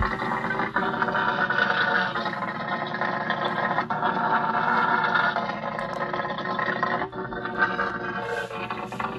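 Custom creature vocalisation sound effects: long, drawn-out growling calls, broken by a few brief pauses.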